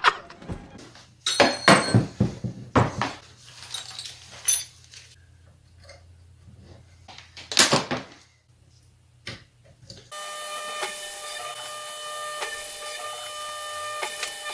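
Scattered clicks and knocks of hands setting up a desktop CNC router. About ten seconds in, the CNC spindle starts milling a copper-clad PCB blank: a steady hiss with several steady whining tones.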